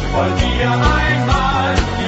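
Background pop-rock song with a steady drum beat of about two hits a second over a pulsing bass line.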